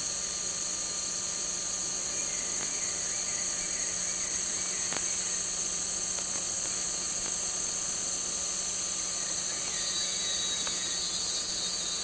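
Rainforest insects in a steady, high-pitched, unbroken chorus, with a low steady hum underneath.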